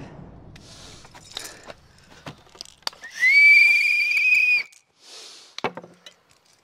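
A high-pitched whistle blown once, a single steady tone lasting about a second and a half, rising briefly as it starts. A few faint clicks come before it.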